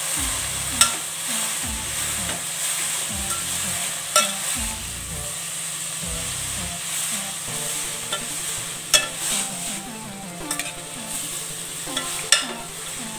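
Large metal spoon stirring shredded cabbage and grated carrots in a metal pot as they sizzle, with the spoon clinking sharply against the pot side four times.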